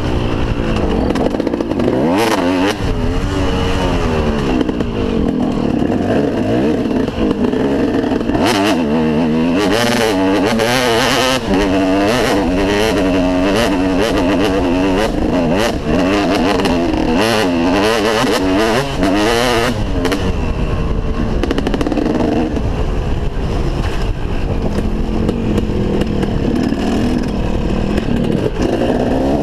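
2003 KTM SX 250 two-stroke motocross engine revving up and down as the bike is ridden on a dirt track, heard from a helmet-mounted camera. Bursts of rushing noise come and go in the middle stretch.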